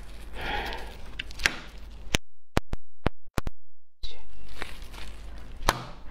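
Kitchen scissors snipping and cracking through the hard shell of a cooked brown crab in sharp clicks. The sound drops away for a couple of seconds in the middle, with only a few single clicks, then picks up again in a quick run of cracks near the end.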